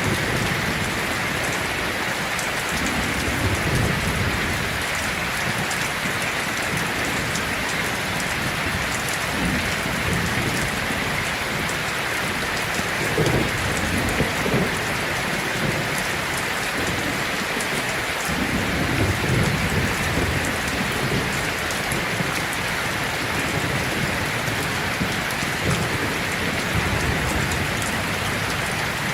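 Heavy rain falling on a tin roof as a steady, dense patter, with low rumbles of thunder rolling in several times.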